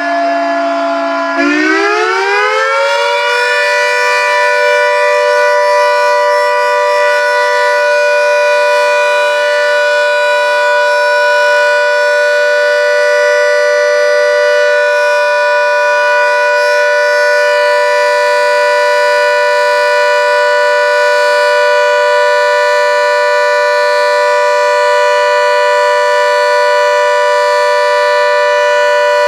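Secomak CS8 siren sounding its test as a steady chord of notes. About a second and a half in, the pitch climbs and the sound grows louder, then it holds level.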